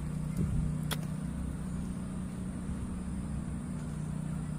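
A steady low mechanical hum runs unchanged, with a single sharp click about a second in.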